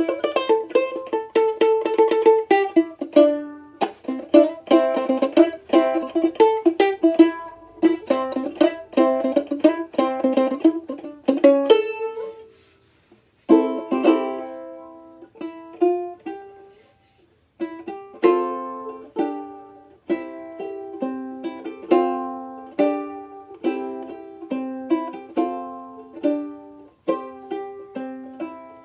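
Outdoor tenor banjolele in re-entrant gCea tuning being played, strummed and picked notes that ring bright and die away quickly. Playing stops twice briefly near the middle, letting notes fade out before starting again.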